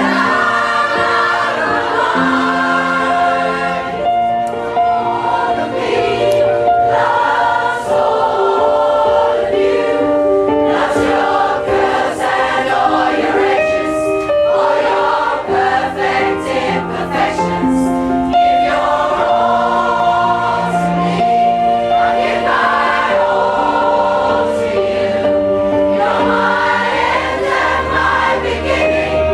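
A pop choir of mixed voices singing together over instrumental accompaniment with a moving bass line.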